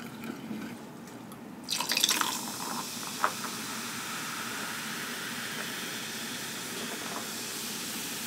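Apple Bubly sparkling water poured into a glass, starting about two seconds in, then fizzing with a steady hiss.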